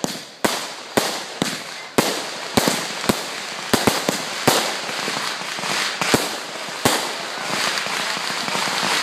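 Aerial fireworks bursting overhead: a quick string of sharp bangs about two a second, thinning out after about five seconds, with a dense crackle of sparks building between them.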